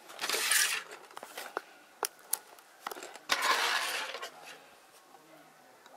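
A cardboard toy box and a disposable plastic plate handled on a wooden table: two rustling, scraping bursts about a second long, one near the start and one just past the middle, with several sharp light clicks and knocks between them.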